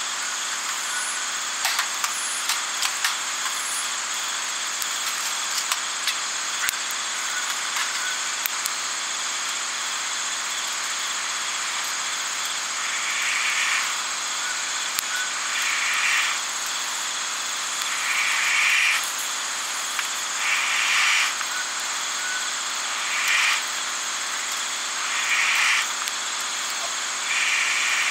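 Night outdoor ambience: a steady high chorus of insects, with a few sharp crackles in the first few seconds. From about halfway through, a call under a second long repeats roughly every two and a half seconds.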